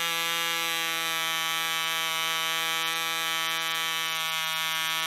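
1960s 1cc ME Heron model diesel engine, a two-stroke compression-ignition glow-free engine, running steadily at high speed: a high-pitched buzz that holds one pitch throughout. It is running well.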